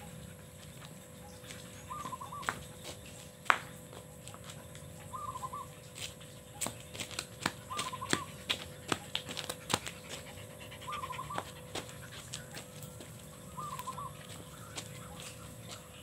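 A dog's feet tapping and clicking on concrete as it jumps and trots about. There is one sharp click a few seconds in and a run of quick taps in the middle. A bird repeats a short warbling call about every two to three seconds.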